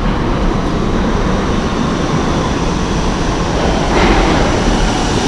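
Subway train running through the underground station, a steady loud rumble that grows brighter and louder about four seconds in.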